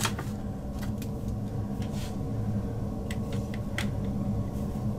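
A pen scratching in short strokes on a lined paper notepad, heard as a few brief scratchy taps over a steady low electrical hum.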